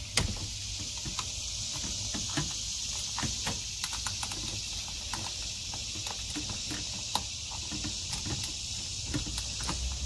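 Irregular plastic clicks and rattles from wiring connectors and the dashboard HVAC control panel being handled and unplugged, the sharpest just at the start, over a steady high hiss.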